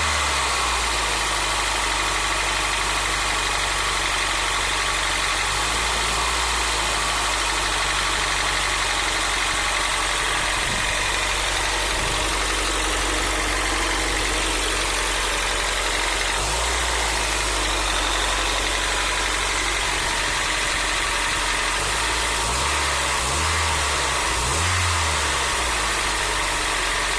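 Nissan SR20DE 2.0-litre four-cylinder engine idling steadily with a knock, given a few light blips of the throttle, most of them near the end.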